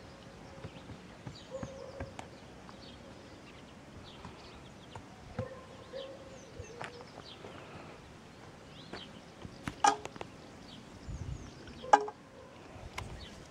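Small birds chirping and twittering on and off, with two sharp knocks about two seconds apart near the end, the second the loudest sound.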